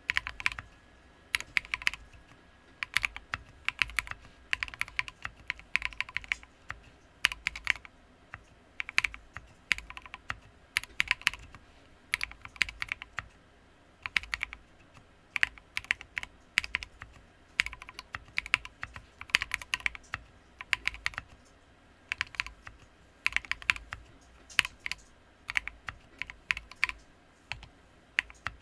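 Typing on a custom mechanical keyboard with lubed Poseidon switches and MT3 keycaps: runs of quick key presses in bursts with short pauses between them.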